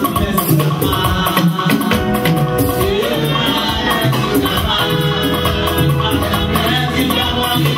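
Music with a steady beat of shakers and drums over sustained pitched notes and a bass line.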